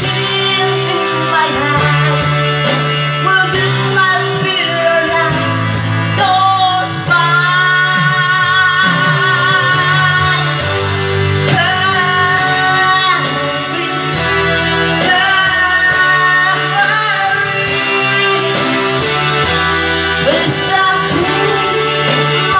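A man singing karaoke through a handheld microphone over recorded backing music, his amplified voice carrying the melody.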